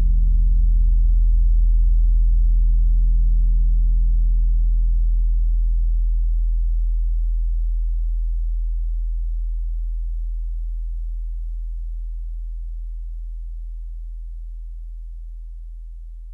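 Deep, steady bass drone from an ambient music track, a low hum with a few faint overtones, slowly fading out as the piece ends.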